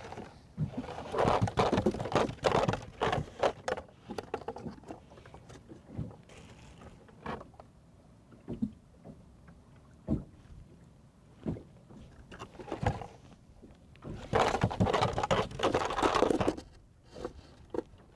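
Handling noise of a trotline being paid out by hand from a foam cooler: quick clicks, scrapes and ticks of line and hooks, busiest in two stretches, about a second in and again near the end, with single knocks in between.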